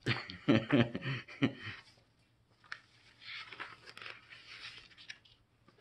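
A man's voice briefly at the start, then soft paper rustling with a few small clicks as the pages of a wall calendar are handled and turned.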